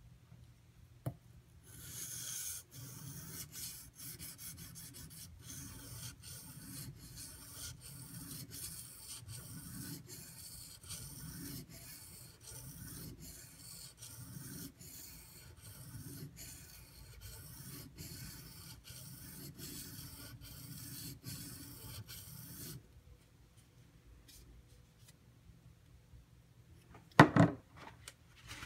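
Steel knife blade stroked back and forth on a Shapton Pro whetstone in a steady rasping rhythm, stopping about 23 seconds in. A single sharp knock follows near the end.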